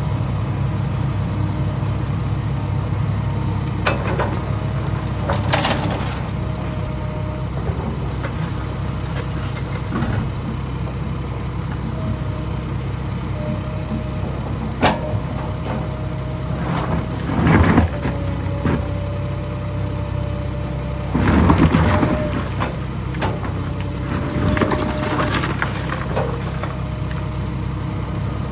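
Heavy construction machinery running steadily, with an on-and-off whine and several clanks and scrapes, the loudest about 17 and 21 seconds in.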